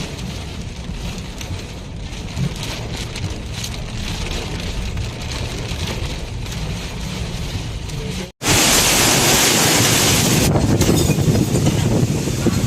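Typhoon wind and rain: gusts buffeting the microphone with a low rumble under a rain hiss. About eight seconds in it cuts to a louder, brighter hiss of heavy wind-driven rain.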